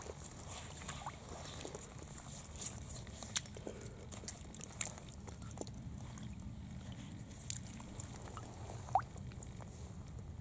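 Shallow stream water trickling steadily while a hand sloshes and splashes among the submerged rocks, with many small splashes and drips. Near the end a rock is lifted out of the water, dripping.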